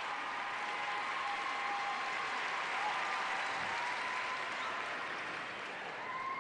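Arena audience applauding steadily, easing slightly near the end.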